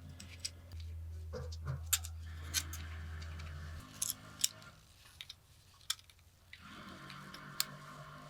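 Sharp metallic clicks and snaps, about half a dozen spread irregularly, over stretches of soft hiss. A low steady hum runs through roughly the first half and cuts off suddenly.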